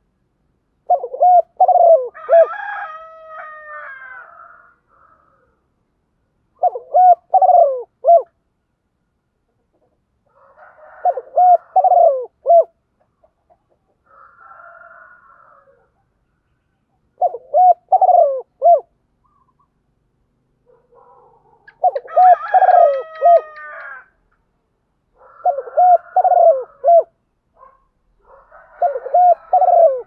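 Spotted dove cooing as a decoy bird calling in wild doves: short phrases of three or four low hooting coos, repeated every few seconds. Twice, near the start and about two-thirds of the way in, a longer, higher call overlaps the cooing for about two seconds.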